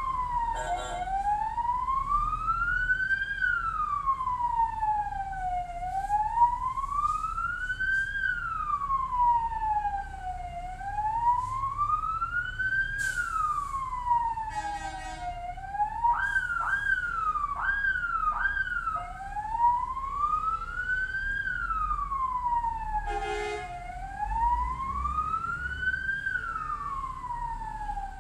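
Ambulance siren wailing, slowly rising and falling in pitch about every four and a half seconds. About two thirds of the way through it switches for a few seconds to four quick yelping sweeps, then returns to the slow wail.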